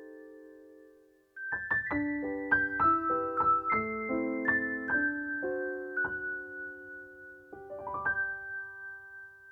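Soft solo piano music: a chord fades out, and after a brief pause a slow phrase of single notes and chords is played, ending on a chord near the end that rings away.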